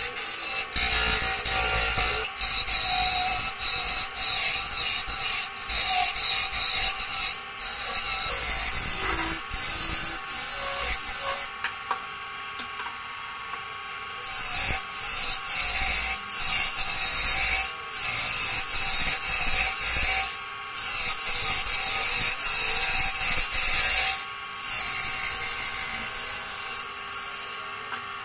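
A wood lathe spins a segmented Kruing and Sungkai bowl blank while a hand-held turning tool cuts its face. The cut makes a harsh scraping hiss that comes and goes in passes with short breaks, over the faint hum of the lathe. Near the end the cutting stops and the sound fades.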